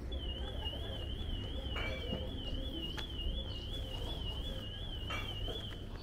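A high electronic warbling tone, wavering up and down evenly about two to three times a second and held for nearly six seconds, like a car alarm siren, over a low steady street background.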